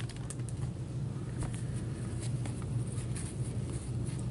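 Trading cards slid and flipped through in gloved hands, giving faint soft ticks over a steady low hum.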